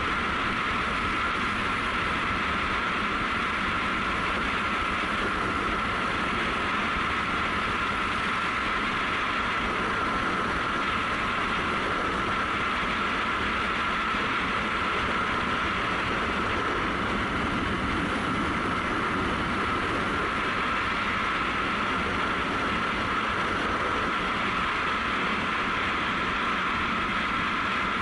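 Honda CRF250L's single-cylinder four-stroke engine running at a steady cruising speed, mixed with steady wind and road noise and a constant high hum.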